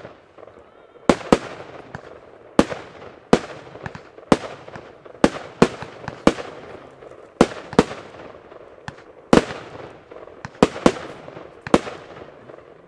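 Blackboxx Pyro Spektakel Level 8 compound firework firing shot after shot into the sky: about fifteen sharp bangs, half a second to a second apart and some in quick pairs, each trailing off in a fading echo as the shells burst.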